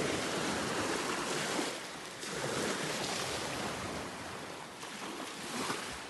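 Small waves washing over the sand at the water's edge, an even hiss that ebbs and swells.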